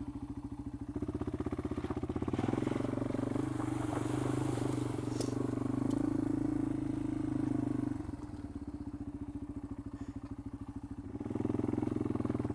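Yamaha XT225's single-cylinder four-stroke engine running as the dual-sport bike is ridden slowly over a rough road. It pulls a little harder for several seconds, eases off about two-thirds of the way through, then picks up again near the end.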